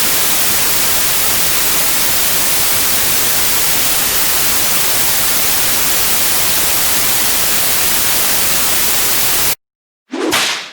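Loud, steady static hiss, an even white-noise rush that cuts off abruptly about nine and a half seconds in. A brief, separate sound starts just before the end.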